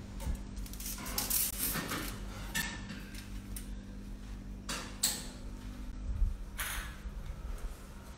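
Kitchen handling noises: several short scrapes and rustles and a couple of sharp knocks, over a steady low hum.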